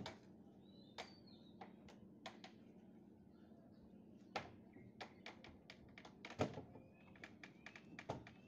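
Scattered light clicks and knocks at an irregular pace, the loudest about six and a half seconds in, from steel reinforcing bars and hand tools being handled during stair rebar tying.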